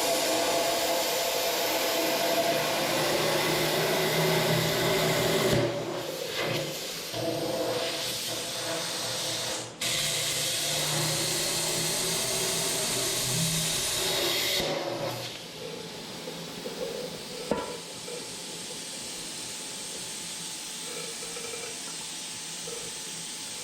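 Cutting torch hissing steadily as it trims the bore in a loader boom for a new pin sleeve. It breaks off briefly a couple of times and runs quieter for the last third.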